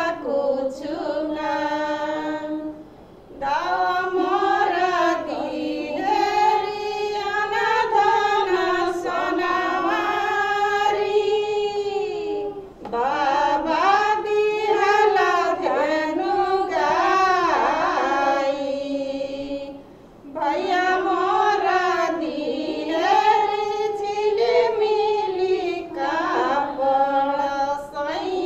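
A woman singing a song in long held, wavering notes, with brief pauses between lines about 3, 13 and 20 seconds in; no instruments are heard.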